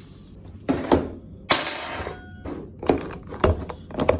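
A clip-lid plastic food container being handled: knocks and thunks as it comes out of the fridge and goes down on a counter, a short scraping rush in the middle, then sharp clicks near the end as the lid's clip latches are worked.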